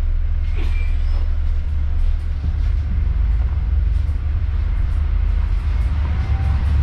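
Bus on the move: a steady low engine and road rumble, heard from on board.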